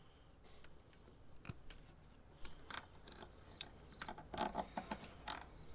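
Faint, irregular small clicks and rustling of automotive wiring and plastic connectors being handled with a wire crimper, growing busier about four seconds in.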